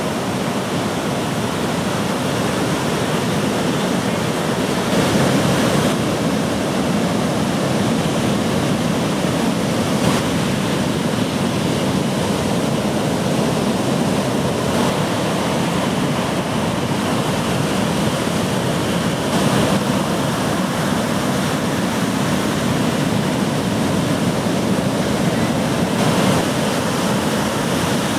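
Ocean surf: a steady wash of breaking waves.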